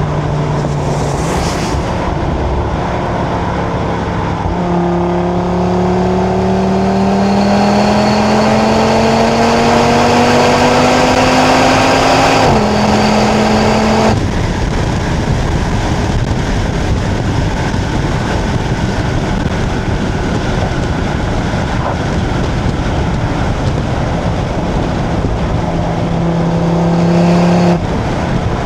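Stock 2025 Audi RS3 five-cylinder exhaust at autobahn speed, with wind and tyre noise. About five seconds in, the engine pulls and its note rises steadily for some eight seconds. It drops sharply at an upshift, then fades as the throttle lifts, leaving mostly wind and road noise. The engine note comes back and swells briefly near the end.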